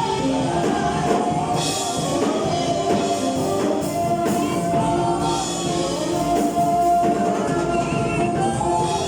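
Church choir singing with a live band, voices holding long notes over drums and cymbals.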